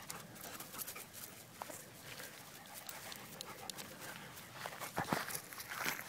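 Weimaraner dog panting as it runs through the grass near the microphone, the breaths louder near the end.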